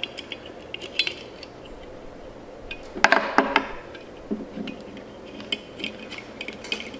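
Small metal parts clinking and clicking as a car horn's steel mounting bracket and nut are handled and worked loose by hand, with a louder cluster of clinks about three seconds in.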